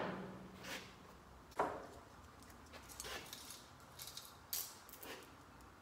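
Saw chain and bar being lifted off a Stihl MS362 chainsaw: a sharp knock about a second and a half in, then light metallic clinks and rattles of the chain links as it is handled.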